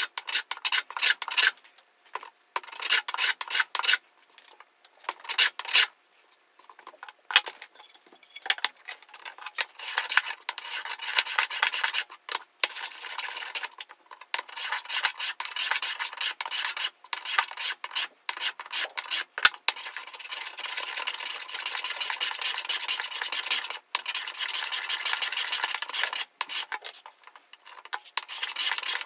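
Hand plane shaving wood from the edge of a board, stroke after stroke: short, separate rasping strokes at first, then longer, nearly continuous scraping passes, with a short pause near the end.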